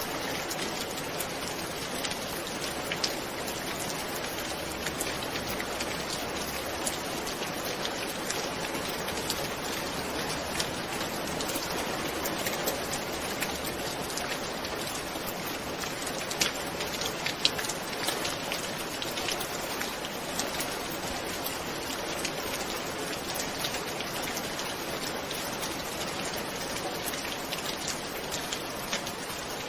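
Steady heavy rainfall, with many sharp individual drop hits ticking out above the even hiss throughout.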